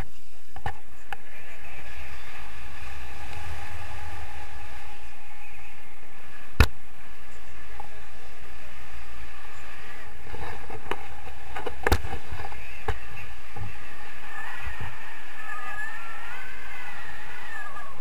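Steady rushing wind noise on an action camera's microphone during a tandem paraglider launch and climb, with two sharp clicks, about five seconds apart. Near the end a faint wavering whistle-like tone rides over the noise.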